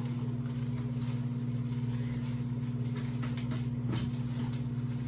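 Steady low electrical hum from a running appliance or motor, unchanging throughout, with a few faint clicks and scrapes of vegetables being sliced about three to four seconds in.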